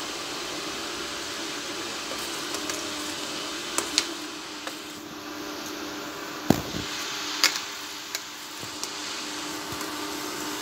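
Steel ladle stirring soup in a steel pan, clinking sharply against the pan several times in the middle, over a steady humming background noise.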